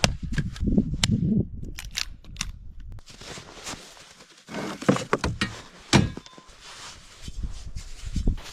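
Irregular sharp cracks and knocks, with heavy low thuds in the first second and a half and two loud cracks a second apart about five seconds in.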